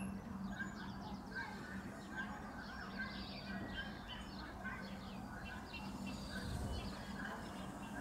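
Small birds chirping and singing, one of them repeating a short call every half-second or so, over a low steady hum.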